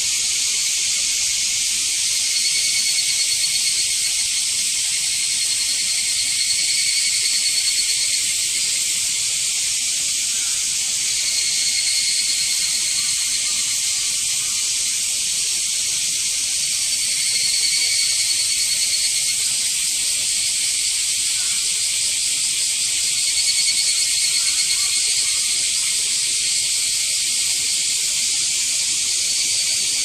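Dense chorus of cicadas: a steady, high-pitched shrill hiss, swelling a little about every five seconds.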